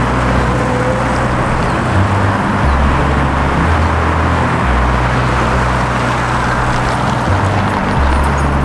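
Steady city road traffic with music over it: a bass line that holds each note for a second or two and then steps to the next.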